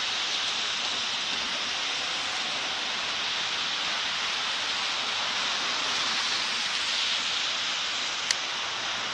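Steady, even hiss with no distinct sound standing out of it, and a single sharp click near the end.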